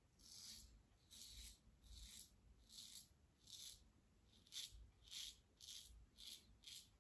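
Edwin Jagger 3ONE6 safety razor with a Rapira blade scraping through stubble on an against-the-grain pass. It makes about ten short, faint scratchy strokes, which come quicker in the second half.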